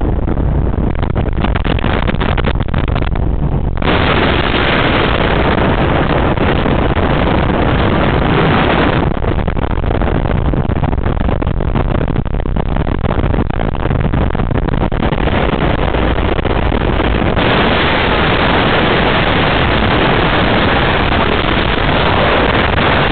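Fountain powerboats running at speed in a chase: a loud, continuous wash of engine and water noise that shifts in texture several times.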